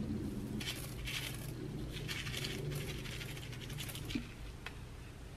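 Small plastic packets of slime sprinkles and clay slices shaken out, with the tiny pieces pattering onto a tabletop in a few short rattling bursts.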